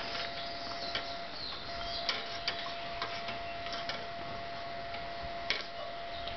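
A handful of light, irregularly spaced taps and clicks, the sharpest about five and a half seconds in, over a faint steady high hum.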